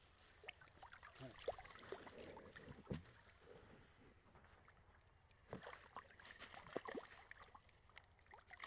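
Faint water sloshing and small splashes as a net full of fish is pulled through the water by hand, with a few sharp knocks scattered through.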